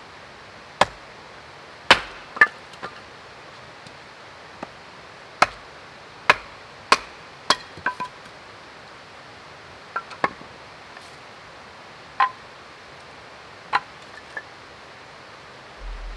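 Firewood being split into kindling on a wooden chopping block: about fifteen sharp, irregularly spaced chops of a blade into wood, some with a brief ring.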